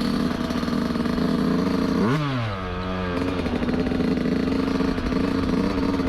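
Yamaha YZ125 two-stroke dirt bike engine running under throttle while riding. About two seconds in the revs drop off to a lower note for about a second, then climb back up as the throttle opens again.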